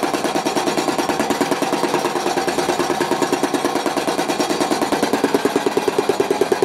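Cricket bat knocking-in machine: a motor-driven ball on an arm hammering the face of a clamped willow bat in a steady, rapid run of knocks, about six a second. The knocks grow a little louder near the end.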